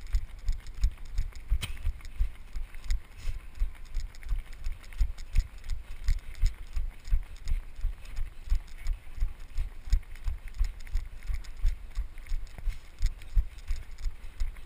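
A runner's footfalls thudding in a steady rhythm, a few strides a second, picked up through a body-worn GoPro as it jolts with each step.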